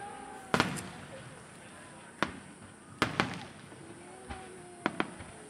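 Aerial fireworks shells bursting overhead: about eight sharp bangs spread over the few seconds, some coming in quick pairs. Crowd voices are heard underneath.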